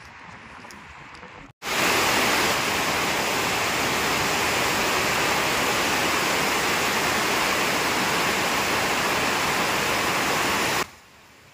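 Heavy rain pouring down, a loud, steady hiss that starts abruptly about a second and a half in and stops suddenly near the end.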